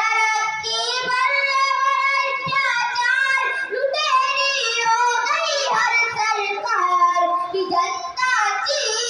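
A young boy singing solo and unaccompanied, in long melodic phrases with held and gliding notes; he starts singing at once after a short pause.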